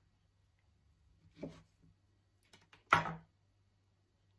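Two knocks of a kitchen knife cutting chicken of the woods mushroom into pieces, about a second and a half apart, the second louder and preceded by a few faint clicks.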